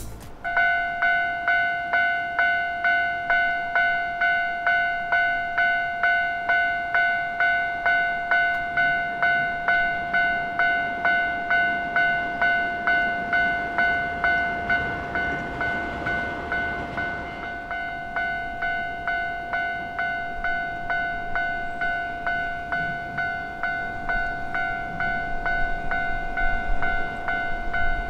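Japanese railway crossing's electronic warning bell ringing, a pitched ding with ringing overtones repeated evenly and steadily, starting suddenly just after the start. Around the middle a passing train's rushing noise swells and fades under the bell.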